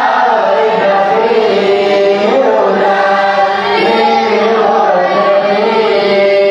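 A man's voice singing a chant in long held notes that step slowly up and down, without pauses.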